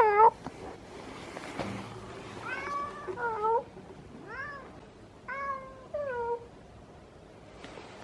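Domestic tabby cat meowing repeatedly: about six short meows, each falling in pitch, one at the start and the rest in a quick run between about two and a half and six and a half seconds in.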